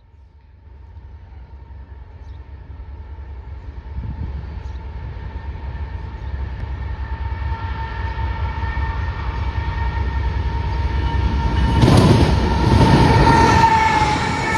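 Canadian National train approaching and growing steadily louder, with a steady high tone running through it. The rumble peaks about twelve seconds in as the train comes close.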